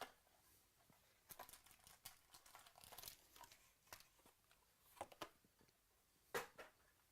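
Faint crinkling and tearing of trading-card pack wrappers and the rustle of cards being handled, in short irregular bursts, the loudest about six seconds in.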